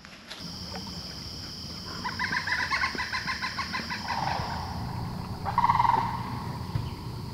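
Birds calling outdoors: a run of rapid repeated notes about two seconds in, then short chattering calls about four and five and a half seconds in, over a steady high thin tone.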